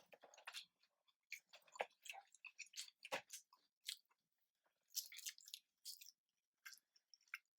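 Faint, close-up eating of a fried chicken and waffle meal: chewing and biting, with scattered short crunches and mouth clicks.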